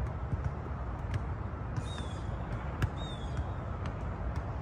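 Soccer balls being kicked on grass: a few sharp thuds, the strongest a little before 3 seconds in, over a steady low rumble. A bird gives a short, falling high call twice in the middle.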